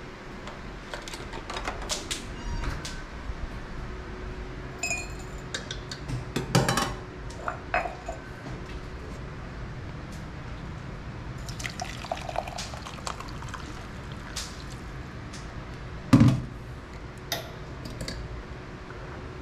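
Kitchen tap running and splashing into a cup at the sink, amid scattered clatter of dishes and utensils, with one sharp knock late on.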